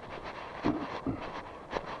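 Footsteps of someone walking along a street, a step about every half second, over a steady background hum.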